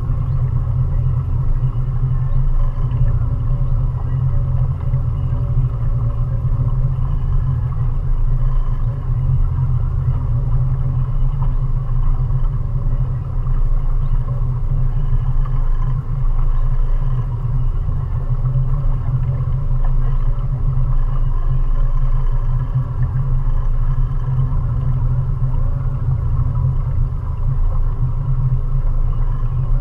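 A 20 hp Mariner outboard motor running at a steady cruising speed, heard as a low, even drone.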